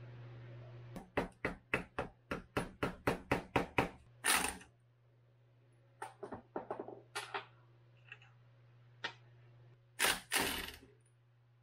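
Hand tools and steel engine parts clicking and knocking as the gearbox of a Yamaha YZ250F engine is taken apart: a quick run of about a dozen sharp metal clicks, a few scattered taps, then a louder, longer rattle about ten seconds in as a socketed tool is set on a gearbox shaft.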